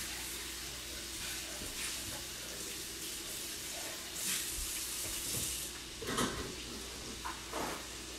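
Kitchen faucet running into the sink while a bowl is washed under it. The water gets louder for a second or so about halfway through, followed by a few short knocks near the end.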